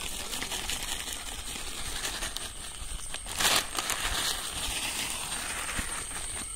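Fertilizer granules and rock salt pouring from a plastic bag onto loose soil: a steady rustling patter, with one louder brief rustle about halfway through.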